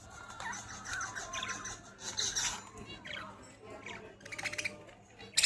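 Birds calling: a string of short squawks and chirps, with a fast rattling call a little past four seconds in.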